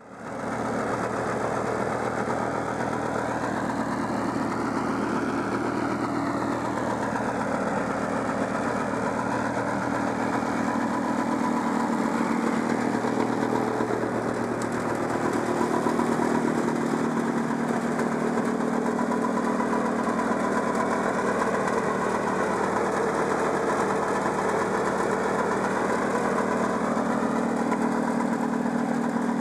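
1969 Polaris Mustang 372 snowmobile's two-stroke JLO engine idling steadily, with a brief small rise and fall in pitch a few seconds in.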